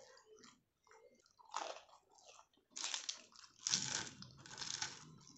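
A person eating crisp food: a few crunchy bites and chewing, the loudest bites in the second half.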